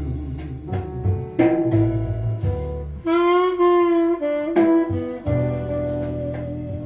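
Recorded jazz ballad played back through a valve (tube) amplifier system in a room: an instrumental passage where a saxophone holds a long wavering note about three seconds in, over bass and drums.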